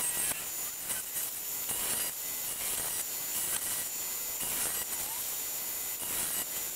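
Milling machine end mill cutting an angled face into metal bar stock, a steady cutting noise with no break.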